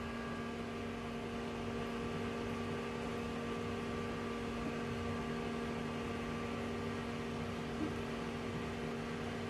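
Steady electrical hum from a running appliance, a few constant tones over a faint hiss, unchanging throughout.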